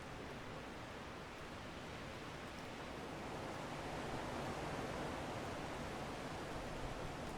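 Strong wind blowing as a steady rushing noise, swelling a little about halfway through.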